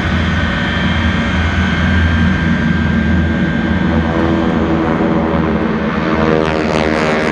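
Loud, steady roar of a jet-powered truck's jet engines running on the runway. About halfway through, the sound of a low-flying aircraft closing in joins it, sweeping in pitch as it nears.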